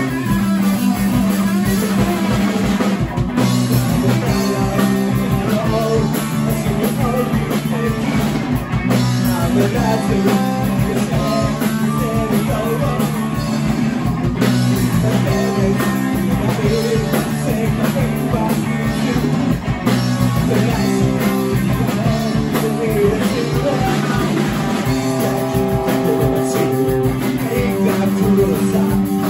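Live rock band playing: electric guitars holding long notes and chords that change every few seconds, over a drum kit.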